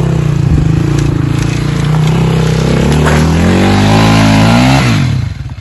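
Off-road motorcycle engine revving hard under throttle, held steady and then climbing in pitch for a second or two before the throttle is shut and it drops back to a lumpy idle near the end.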